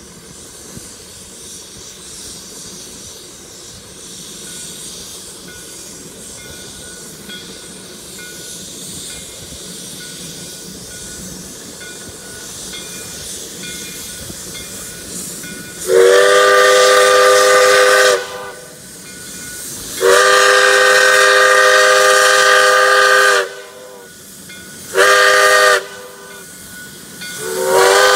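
Shay geared steam locomotive hissing steam as it approaches, growing slowly louder. It then sounds its multi-tone steam whistle in four blasts, long, long, short, long, the grade-crossing signal, with the last blast still sounding at the end.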